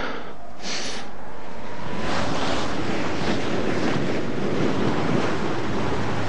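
Wind and sea waves as a steady rushing noise, growing a little stronger in the first two seconds and then holding steady.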